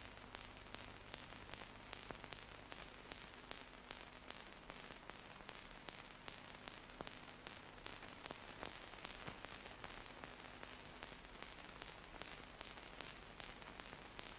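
Faint steady hiss with frequent small crackling clicks and a low steady hum: the background noise of an old film transfer, with no other sound on the track.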